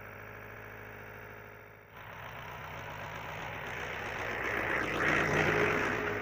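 A vehicle engine running, growing louder as it comes nearer and loudest a little before the end. It starts abruptly about two seconds in, after a steady, even hum.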